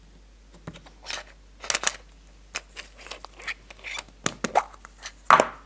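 Hollow plastic surprise egg handled and twisted, its two halves scraping and clicking, with the loudest snap near the end as the capsule pops apart.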